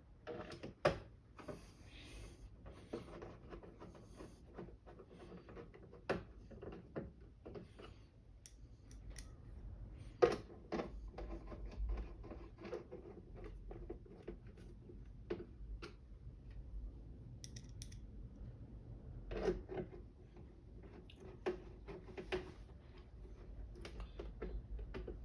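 Small metal screws and a screwdriver working on the plastic back of an LCD monitor: scattered clicks, taps and light scraping as the VESA mounting screws are fitted, with a few sharper knocks.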